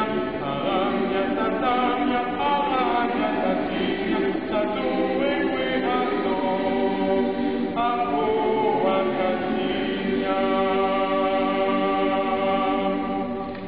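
Boys' choir singing a cappella: a slow lullaby in held notes, several voices at once.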